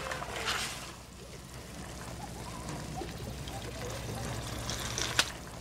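Liquid poured into a cooking pot over a steady low hum, with a single sharp click near the end.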